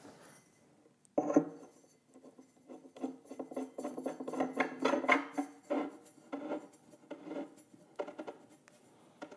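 Hollow steel post being turned by hand onto a bolt in a shelf board: an irregular run of short, squeaky metal scrapes and rubs as it is screwed down, starting about a second in.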